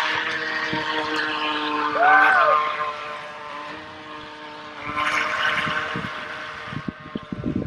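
Twin electric motors of a toy RC yacht whining steadily as the boat runs on the water, with a hiss of water and wind. About two seconds in, a short tone rises and falls over it, and near the end there are a few irregular low bumps.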